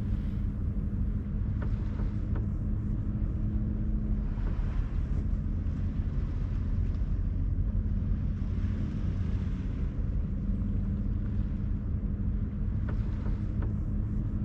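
A sailboat's engine running steadily under way: a constant low drone with a steady hum.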